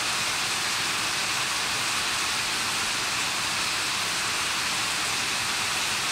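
Water falling from the filter outlets and mesh trays into a koi tank, a steady splashing hiss on the water's surface.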